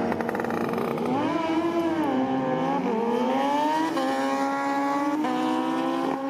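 A motorcycle engine revving: its pitch rises and falls once, then climbs as it accelerates, dropping back in steps at upshifts about four and five seconds in.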